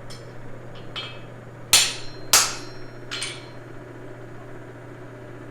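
Hammer blows on metal, ringing: two faint taps, then two loud strikes about half a second apart and a lighter one after, over a steady low hum.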